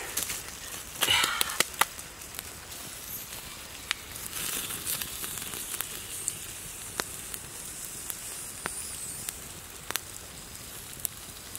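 A wood and charcoal fire crackling under a fish grilling on a bamboo rack: scattered sharp pops over a faint sizzling hiss. A brief rustling noise comes about a second in.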